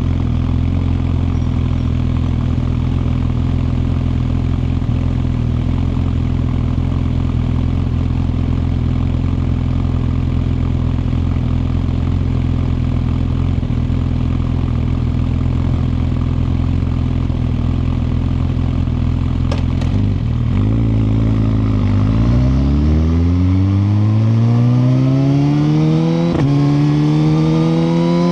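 2021 Suzuki GSX-R1000R's inline-four engine idling steadily, then revving up as the bike pulls away, its pitch rising smoothly with a brief break near the end at a gear change.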